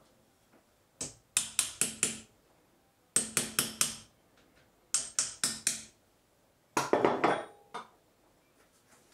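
Hammer blows on an aluminium piece set on top of a shaft, driving the shaft out of a mini milling machine's spindle housing held in a vise. Four bursts of several quick, ringing strikes, a second or so apart.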